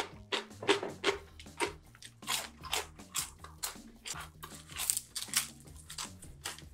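A person chewing crunchy food with the mouth closed: quick, irregular crunching chews, about three a second.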